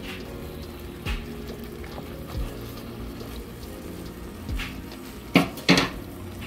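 A wooden spoon stirring peas and green beans in their cooking liquid in a pan, with a wet, liquid sound. Two sharp knocks come near the end, and soft background music runs underneath.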